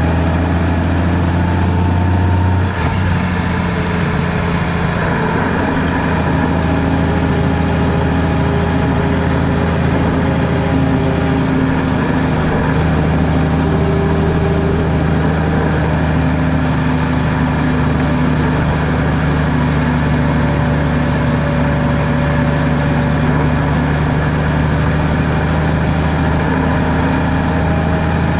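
Car engine and road noise while driving, a steady hum with several engine tones. About three seconds in there is a brief dip and a change in the engine note.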